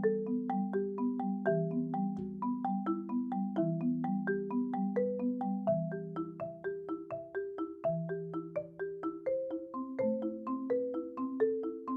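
Marimba played with mallets in a steady, flowing passage of about three to four notes a second, higher notes moving over ringing lower notes. It is picked up raw by a microphone placed underneath the bars, with no EQ or compression.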